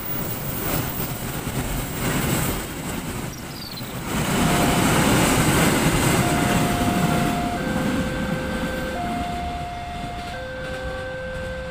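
Container freight train's wagons rumbling and clattering along the rails, fading as the train draws away. From about four seconds in, a level-crossing warning alarm sounds a steady two-tone signal, high and low notes taking turns about every second and a half.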